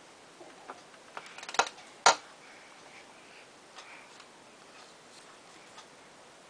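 A run of small clicks and knocks, ending in two sharp knocks about half a second apart around two seconds in, then only faint ticks.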